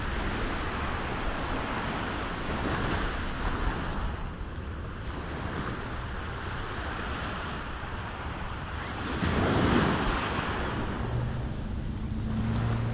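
Small ocean waves breaking and washing up a sandy beach, with wind rumbling on the microphone; a bigger wash comes about nine seconds in. A low steady hum joins near the end.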